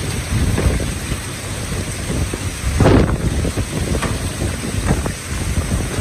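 Supercell thunderstorm's strong gusting wind and heavy rain, the wind buffeting the microphone with a rough low rumble, strongest in a gust about halfway through.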